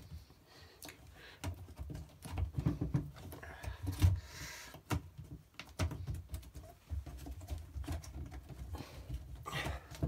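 Rubber door seal of a Miele front-loading washing machine being pressed and worked by hand onto the drum opening: irregular rubbing and handling noise with scattered knocks, the loudest about four seconds in.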